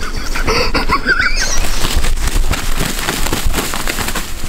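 Hurried footsteps crunching through dry leaf litter, a dense crackling close up. A few short high calls sound in the first second and a half.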